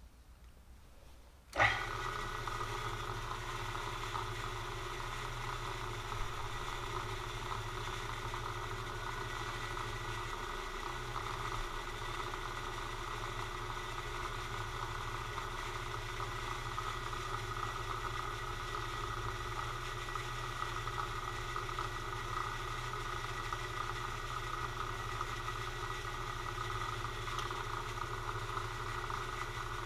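Milling machine spindle starting up about a second and a half in, then running steadily with a constant whine. It is turning a coaxial indicator to center over a hole, so nothing is being cut.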